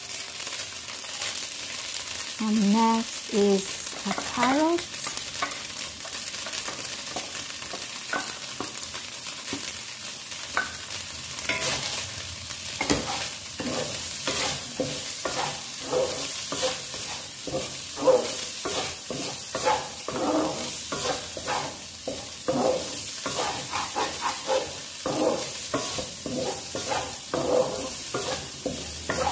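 Diced carrots, minced pork and meatloaf sizzling in oil in a frying pan. From about twelve seconds in they are stir-fried with a spatula, a quick run of scraping and tossing strokes against the pan.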